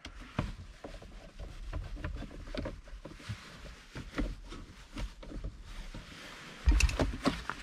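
Hands refitting plastic car console trim and driving in a screw: irregular light clicks, taps and scrapes, with a louder knock and rattle about seven seconds in.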